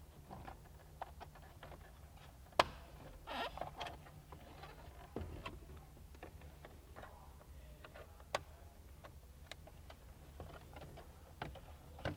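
Small plastic clicks and rustling as wiring connectors are pushed onto the back of a car's HVAC control head, with a sharp snap about two and a half seconds in and another a little after eight seconds. A faint steady low hum runs underneath.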